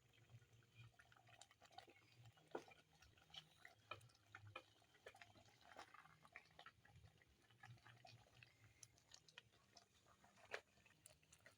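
Faint, scattered crackling of chicken curry cooking in a hot pan, with a faint low hum underneath.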